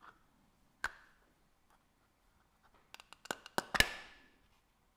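Clear plastic lid snapped onto a small round plastic parts container: a single click about a second in, then a quick run of sharp plastic clicks, the last and loudest with a brief ring as the lid seats.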